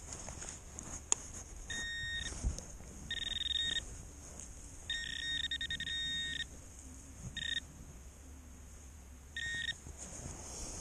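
Handheld metal-detecting pinpointer sounding in five short bursts of a high electronic beep, one of them longer with a rapid pulse, as it is probed around a dug hole and closes in on a buried metal target. A dull thump of handling sounds between the first two bursts.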